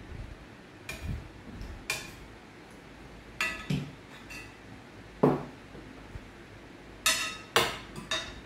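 Tableware clinking: a metal ladle knocking against a stainless steel pot and ice clinking in a glass of water as it is drunk from and set down. The clinks come as a string of separate sharp strikes, a few of them ringing briefly, and the loudest fall in the second half.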